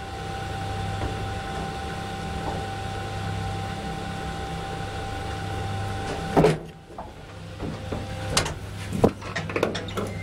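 Old Bassetti traction elevator, refurbished by Timan, running with a steady hum and a thin whine. About six seconds in it stops with a loud thump, and clicks and rattles follow from the car's wooden doors being worked.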